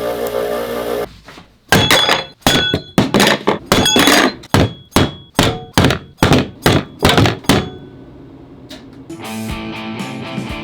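A steady run of sharp knocks, about two and a half a second, each with a brief metallic ring, lasting about six seconds. Guitar music comes in near the end.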